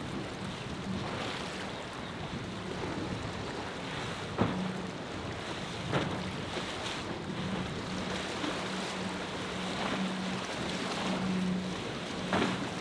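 Mako center-console boat's Mercury 225 outboard motor running at a steady drone as the boat pushes through rough, breaking water, with rushing spray and wind on the microphone. Three sharp thumps stand out, about a third of the way in, near the middle and near the end.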